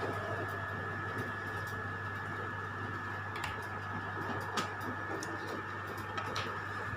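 Steady electrical hum with a thin high tone held over it, and a few light clicks partway through.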